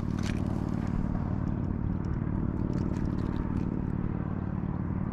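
A steady low engine hum throughout, with a few light clicks and scrapes over it.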